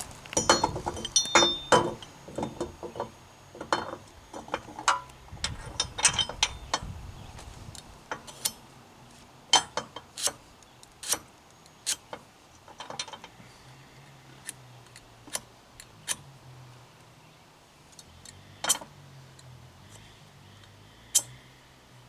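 Irregular sharp metal clicks and clinks as square steel tubing is handled and fitted into the receiver of a bumper-mounted rack. They come in quick clusters for the first several seconds, then as scattered single clicks every second or two.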